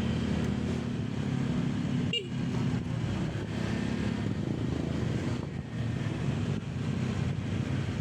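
Motorcycle engine running steadily while riding, with road and wind noise; a brief sharp change in the sound about two seconds in.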